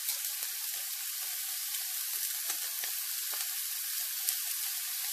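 Sliced carrots, onion and garlic frying in hot oil in a pan: a steady sizzle with small scattered crackles.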